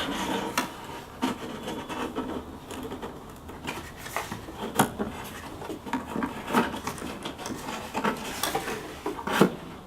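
Cabin air filter being pushed into its plastic housing: rubbing and scraping with scattered light clicks and taps, and a sharper knock near the end.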